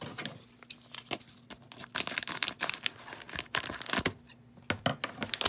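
Plastic wrapper of a hockey card pack crinkling and crackling in the hands as it is handled and torn open, with irregular sharp crackles that grow thicker about two seconds in and again near the end.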